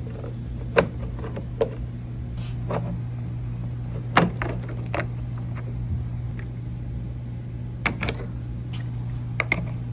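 Pry tool working the plastic rear door trim of a Toyota FJ Cruiser: about nine sharp clicks and snaps, some in quick pairs, as trim clips are popped loose. A steady low hum runs underneath.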